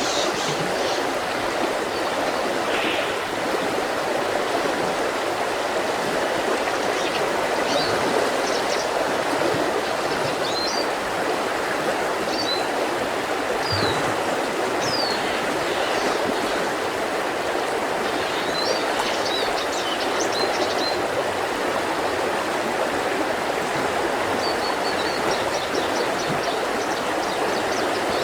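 Mountain river rushing steadily over stones, with scattered short bird chirps above it.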